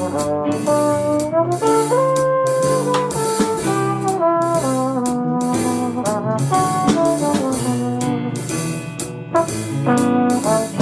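Small jazz band playing: a trombone carries the melody, bending between some notes, over piano, upright bass and drums.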